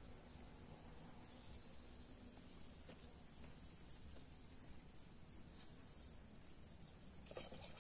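Near silence with faint insects chirping: a steady high hum with short high chirps coming in bunches, and a soft knock near the end.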